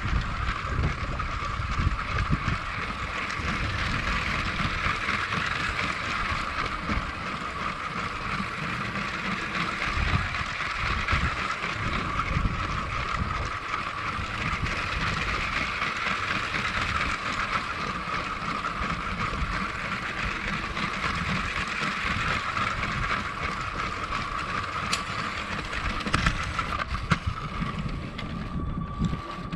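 Lego model train's small electric motor running with a steady whine as the train travels along plastic track, over an uneven low rumble.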